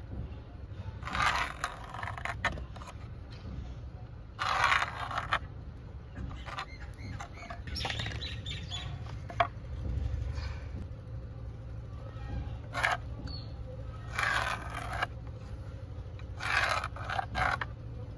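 Pencil scratching on a rough wooden plank in short strokes, tracing a spoon outline around a wooden template, over a low steady hum.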